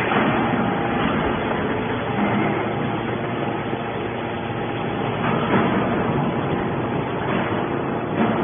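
A 200-ton hydraulic scrap metal baler running: a steady mechanical drone with faint steady tones, briefly louder about five and a half seconds in and again near the end.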